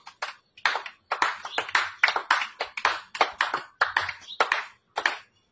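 Several people clapping their hands, about four claps a second, the claps overlapping a little unevenly.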